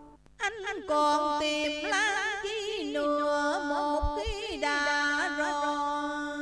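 Vietnamese cải lương accompaniment: string instruments play a melody with wide pitch bends and vibrato over a held note. The melody comes in about half a second in.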